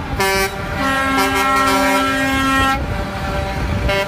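Air horns of concrete mixer trucks blaring in a chord, one long blast of about two and a half seconds and a shorter one near the end, over the low rumble of the trucks' diesel engines.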